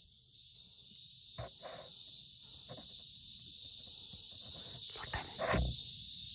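A steady high-pitched chorus of insects, slowly growing louder, with a few short knocks, the loudest about five seconds in.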